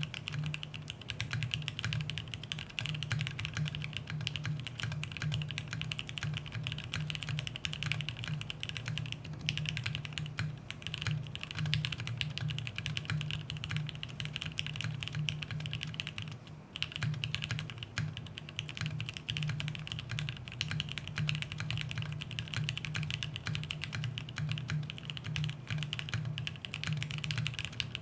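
Fast, continuous typing on a mechanical keyboard with JWK Black linear switches in a polycarbonate plate: a dense run of poppy, clacky keystrokes, with a short lull a little past the middle.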